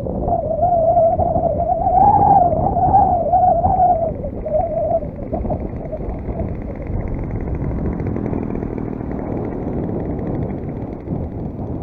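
Engine note of a 35cc NGH single-cylinder two-stroke gas engine on an RC plane in flight, wavering in pitch, then fading out about five seconds in. After that, wind buffeting the microphone.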